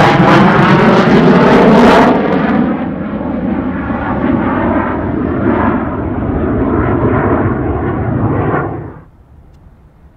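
F-15C Eagle jet, powered by twin Pratt & Whitney F100 turbofans, flying past: loud jet noise with a pitch sweeping downward for the first two seconds, then a lower, lingering rumble. The sound cuts off abruptly about nine seconds in.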